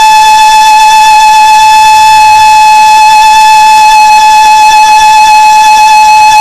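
Background music: a single loud, high flute-like note held steady without a break.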